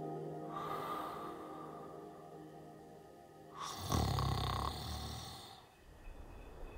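A man snoring in his sleep: a softer breath near the start, then one loud snore about four seconds in that fades away.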